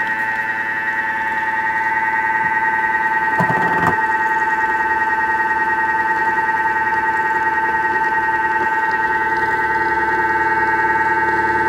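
Thermomix motor running at speed 4 with its butterfly whisk fitted, whipping cold liquid cream into whipped cream. It makes a loud, steady whine of several fixed tones, with a brief noise about three and a half seconds in.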